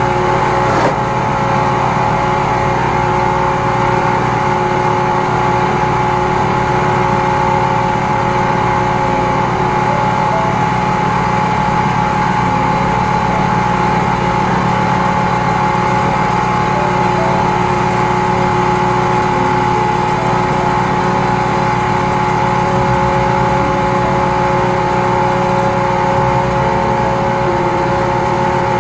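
High-pressure sewer jetter's engine-driven pump running steadily under load, a loud continuous drone with several fixed pitches, as the jet hose is worked down a grease-clogged drain line.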